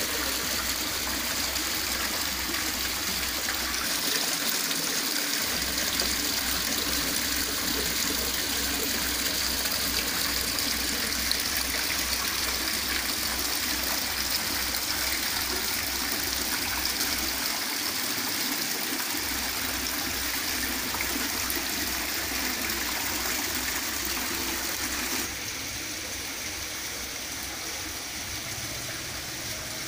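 Water falling over the rocks of an indoor artificial rock-mountain fountain (hòn non bộ) and splashing into its pond, a steady rush of falling water that turns a little quieter about 25 seconds in.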